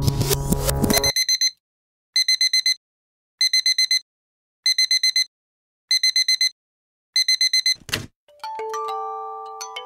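Music stops about a second in. An electronic alarm clock then beeps in bursts of a few quick high beeps, six bursts about 1.25 seconds apart. Near the end comes a short thump, and chiming glockenspiel-like music begins.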